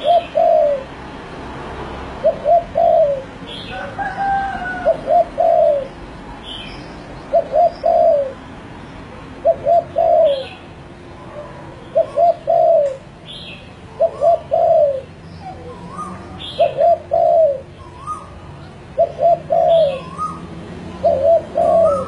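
Spotted dove cooing: short phrases of two to four low coos, repeated about every two seconds. Small birds chirp faintly in the background.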